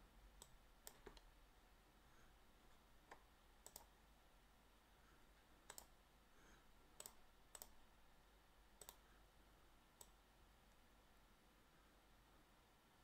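Faint computer mouse clicks, about nine scattered single and paired clicks over near silence.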